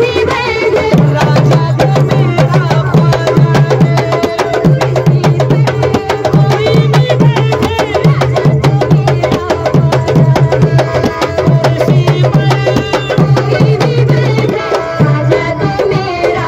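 Devotional folk music: several dholak barrel drums beaten by hand in a fast, even rhythm under an electronic keyboard melody.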